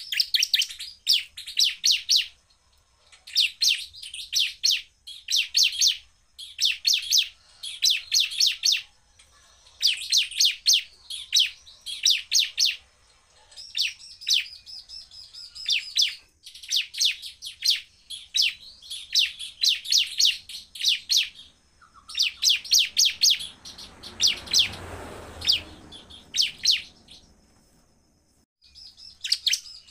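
Bar-winged prinia (ciblek) singing its rapid-fire 'shooting' call: loud bursts of high notes repeated very fast, a burst every second or two. A short burst of rushing noise comes about two-thirds of the way through, and the song thins out near the end.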